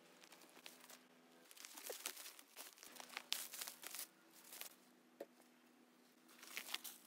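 Dry leaf litter and twigs crunching and crackling in irregular bursts, busiest a couple of seconds in and again near the end, as someone picks their way through undergrowth and debris. A faint steady low hum sits underneath.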